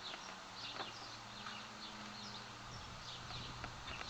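Small birds chirping repeatedly in quick short falling notes, over a faint low hum.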